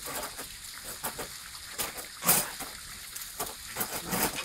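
Ice axes and crampons striking glacier ice as a climber goes up the wall: a few sharp, irregular knocks, the loudest about two seconds in.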